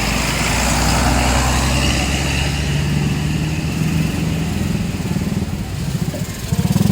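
Tour bus engine running close by as a steady low drone, getting louder about six and a half seconds in.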